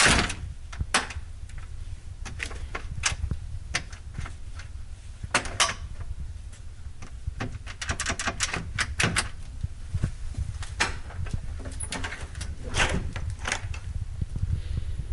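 Metal lever door handle and latch being worked as a door is opened and closed, giving scattered sharp clicks and knocks. The loudest comes right at the start and a quick run of clicks follows about eight seconds in, over a steady low rumble.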